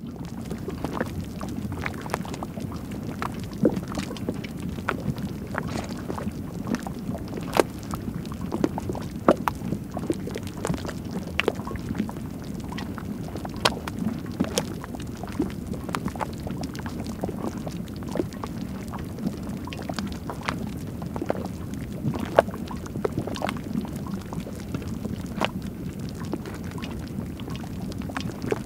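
Thermal mud pool bubbling up close: a continuous low rumble with many irregular pops as gas bubbles burst through the thick mud.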